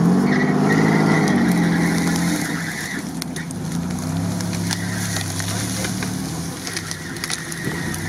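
Toyota 4Runner's engine revving as the SUV pulls away through mud, rising and falling in pitch for the first couple of seconds, then running lower and steadier.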